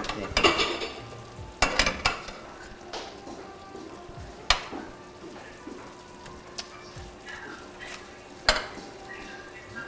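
Kitchen utensils clinking and knocking against dishes and a wooden cutting board, a few sharp clicks spaced out over several seconds, over a steady background sizzle of food frying on the gas stove.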